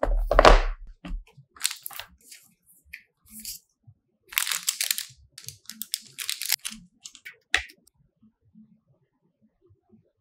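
Unboxing handling noise: a cardboard knife box opened with a dull bump, then short bursts of paper and plastic packaging rustling and crinkling, and a sharp click about seven and a half seconds in. After that only faint handling.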